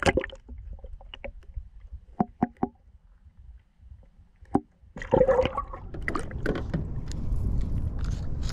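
Water splashing and sloshing around a largemouth bass held by hand in the water beside a small aluminium boat. Scattered sharp knocks come first, then a louder splash about five seconds in, followed by a steady low rumble of moving water.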